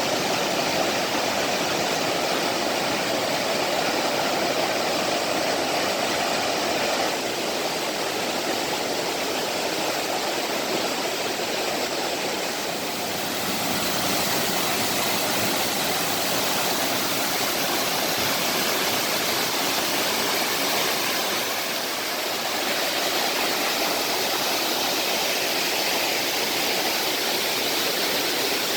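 Water of a mountain valley stream rushing, a steady, even rush that shifts a little in tone a few times.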